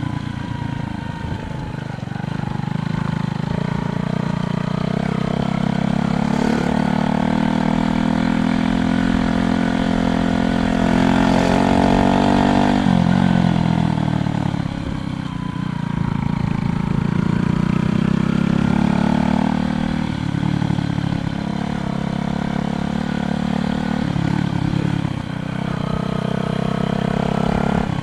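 Motor vehicle engines running on the road close by, their pitch rising and falling, with a drop in pitch about thirteen seconds in as one goes past.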